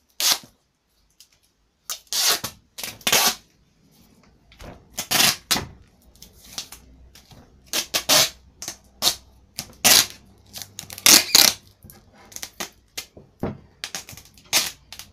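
Duct tape being pulled off the roll and torn while wrapping a football: many short, irregular ripping bursts, with a pause about a second in.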